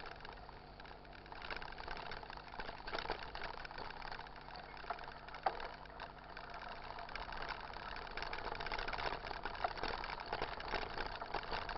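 Mountain bike rolling over a wet cobbled road: steady tyre noise with the bike rattling and clicking over the stones, and one sharper knock about five and a half seconds in.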